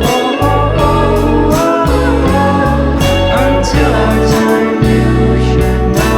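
Pop song playing: instrumental passage with guitar over bass and a steady drum beat.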